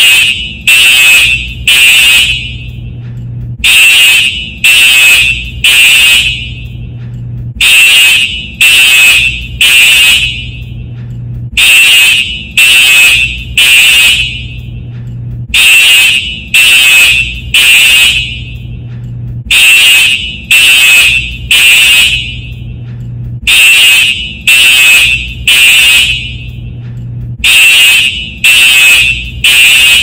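Simplex TrueAlert fire alarm horn sounding the temporal code 3 evacuation pattern: three loud, high-pitched blasts, a pause, then three more, repeating about every four seconds.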